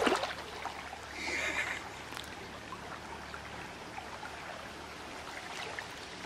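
Shallow water splashing and trickling as a cast net is dragged in through it by hand, with a brief louder swish of water about a second in.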